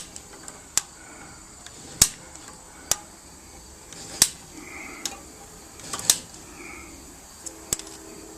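Sharp metallic clicks, one about every second or so and unevenly spaced, from a ratchet being worked to tighten a chain and cable that lift the cylinder heads off a stuck tractor engine.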